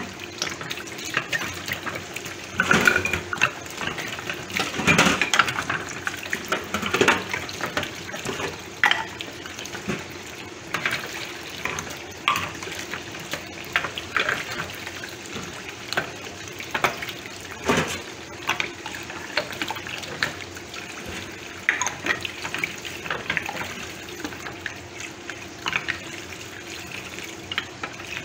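Spider conch shells being stirred by hand in a steel pot of water in a stainless sink, with irregular clacks of shell against shell and against the pot over running tap water.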